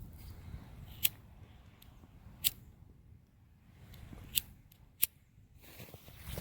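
Four short, sharp clicks at irregular intervals over a faint low rumble.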